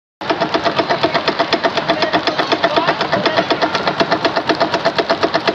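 A machine at a milk tea counter running with a loud, fast, even rhythmic pulsing of about nine beats a second over a steady hum.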